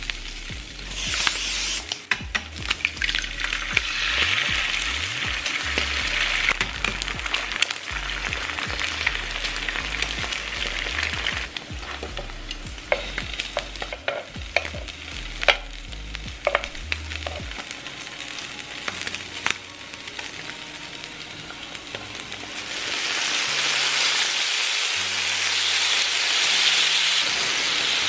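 Cubes of Spam sizzling as they fry on a flat griddle, with sharp clicks of metal tongs turning the pieces. The sizzle swells loud near the start and again near the end.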